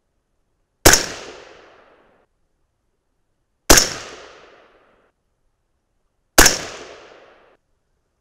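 Three shots from an AR-15-style rifle in .223 Remington, spaced about two and a half to three seconds apart. Each is a sharp crack followed by about a second of echo dying away.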